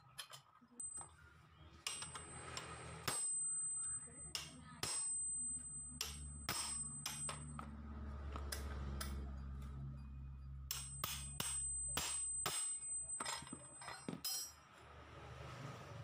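Scattered sharp metallic clicks and clanks of a wrench working the centre nut on a scooter's CVT clutch assembly, with steel pulley parts knocking together as they are handled.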